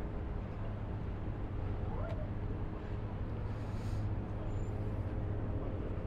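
Steady low hum and rumble of outdoor background noise, with a short hiss about four seconds in.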